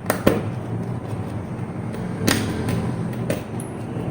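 A few sharp clicks and knocks, the sound of small electrical parts and tools being handled and set down, over a low steady hum.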